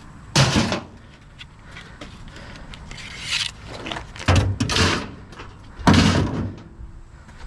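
Scrap pieces being handled and loaded: several separate knocks, scrapes and clatters, the loudest about six seconds in.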